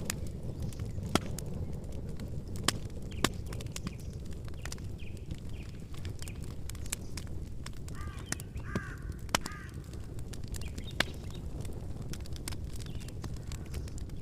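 Campfire burning with a steady low rumble and constant crackling, with a few louder pops. About eight seconds in, a bird calls three times in quick succession.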